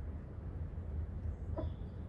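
A chicken gives one short cluck about one and a half seconds in, with faint high chirps around it, over a steady low rumble.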